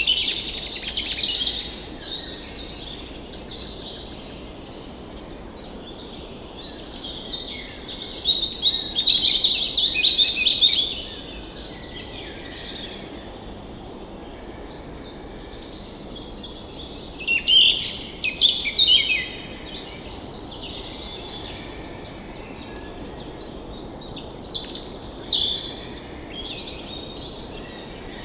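Songbirds singing and chirping in several bouts of quick, high phrases, over a steady low rush of flowing stream water.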